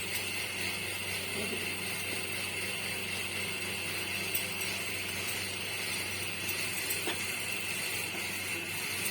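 Colocasia-leaf rolls frying in hot mustard oil: a steady sizzle with a few faint ticks.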